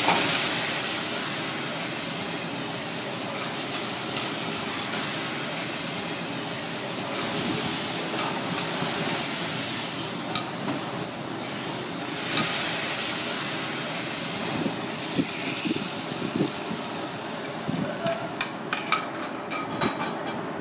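Butter-and-tomato sauce sizzling in a small iron wok on a gas burner, loudest at first and dying away as it is ladled out. Then a steady kitchen hum with scattered clinks of utensils and dishes, several in quick succession near the end.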